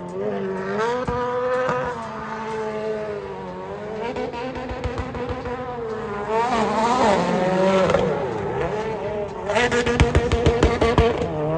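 A drift car's engine revving hard, its pitch swinging up and down with the throttle, with tyres squealing as it slides. Near the end comes a louder stretch of rapid sharp crackles.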